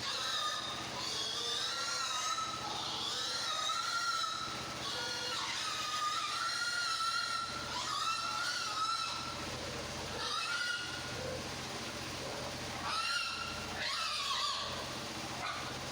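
Pigs squealing: a string of long, high-pitched squeals that rise and fall, nearly continuous for the first several seconds, then two shorter bouts near the end, over a steady low hum.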